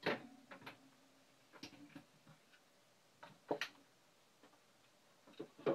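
Light, scattered clicks and knocks of kitchen items being handled at a counter, about a dozen in all at no steady rhythm, the sharpest about three and a half seconds in and near the end.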